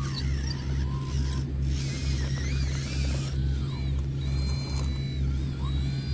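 Volvo RC excavator working: its electric motors whine up and down as the boom and bucket move, over a steady, pulsing low hum. A short rough scraping noise comes about a second and a half in.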